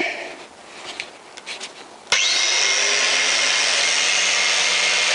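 A few light handling clicks, then about two seconds in an electric angle grinder switches on, spins up and runs steadily at full speed with a loud, even whine.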